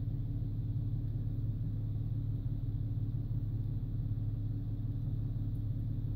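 Toyota FJ Cruiser's V6 idling: a steady, even low rumble.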